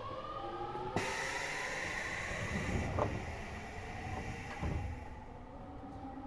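Eidan 6000-series subway car accelerating away under its high-pitched Mitsubishi three-level VVVF inverter, taken over from the 7000 series. Its whine climbs in pitch and about a second in changes abruptly to a steady high tone with hiss, which fades as a lower tone takes over and keeps rising. Two wheel thumps over rail joints are heard mid-way.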